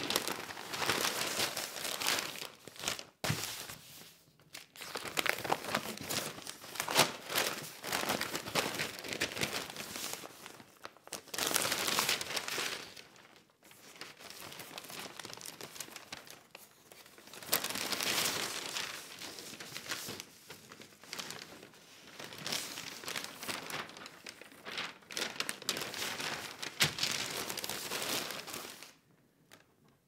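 Newspaper being read and its pages turned: a continuous run of crisp paper rustling and crinkling that swells with each page turn and eases between them. It stops about a second before the end.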